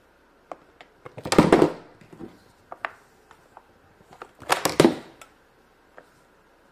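Plastic toy packaging being handled and crinkled, with scattered small clicks and taps and two louder crinkling bursts, one about a second in and one past the middle.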